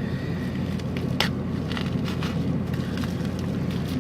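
A knife cutting into a cardboard package and its packing tape, with one sharp scrape about a second in and a few lighter scratches after, over a steady low hum.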